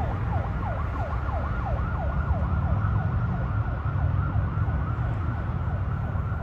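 Siren of a motorcade escort vehicle in a fast yelp, repeating falling wails about three or four a second, over a low rumble of traffic.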